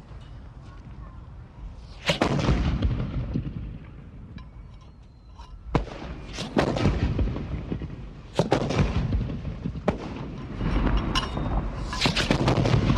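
Several rifles firing on an outdoor range: about seven sharp shots at irregular intervals, some a fraction of a second apart, each followed by a long rolling echo.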